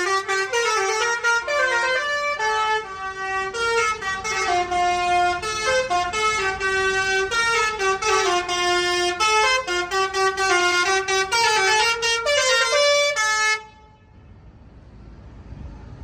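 Basuri telolet multi-tone air horn on a bus playing a fast tune of short notes across several pitches, then cutting off suddenly near the end. A quieter low rumble follows.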